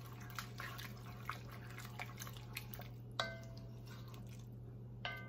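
A spoon stirring white beans and broth in an enameled cast-iron pot: soft wet sloshing with small taps, a ringing clink about three seconds in, and another just before the end.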